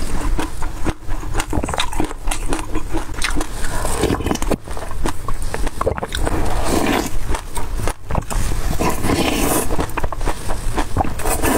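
Close-miked eating sounds: wet chewing of spoonfuls of yogurt topped with black sesame seeds and passion fruit pulp, with many small clicks from the seeds and the spoon.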